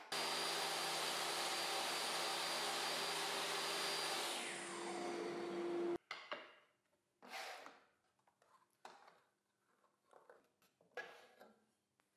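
Trim router running steadily with a high whine, its sound shifting a little about four seconds in and cutting off abruptly about six seconds in. After it, a few faint knocks.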